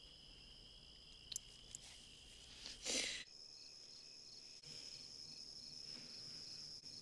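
Night insects, crickets, trilling steadily at a high pitch, with a brief louder rush of noise about three seconds in. After it the insect sound changes to a steady high trill with pulsing chirps a little over twice a second.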